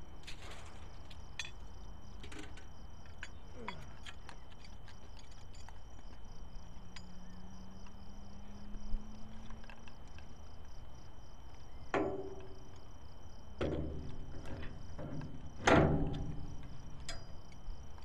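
Crickets chirping in a steady pulsing drone, with scattered clicks and, from about twelve seconds in, several louder knocks and clunks.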